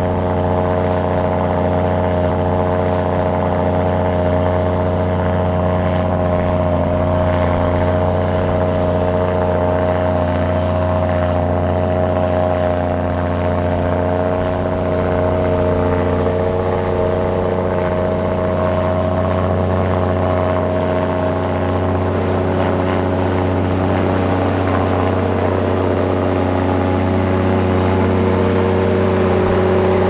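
Heavy earthmoving machine's diesel engine running steadily, its pitch holding nearly constant.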